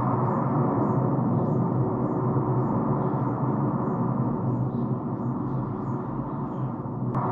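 Background music: a steady gong-like drone with a faint light beat about twice a second. A sharp click near the end.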